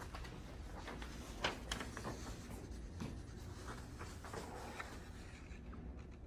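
Soft footsteps and rustling handling noise from a handheld camera carried by someone walking down a corridor, with a few sharper knocks over a low room hum.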